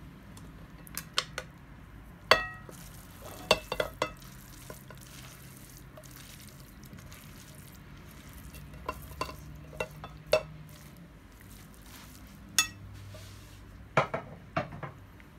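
Silicone spatula stirring a thick, creamy filling in a glass mixing bowl, with scattered sharp knocks and scrapes of the spatula against the glass. The loudest is a ringing clink about two seconds in. A steady low hum runs underneath.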